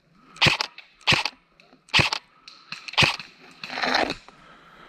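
Airsoft replica rifle firing single shots: four sharp cracks at roughly one-second intervals, followed near the end by a longer rustle of leaves and branches brushing past.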